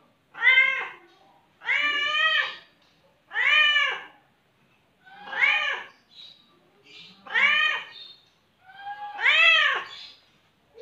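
Domestic cat meowing over and over: six drawn-out meows, one every second and a half to two seconds, each rising and then falling in pitch.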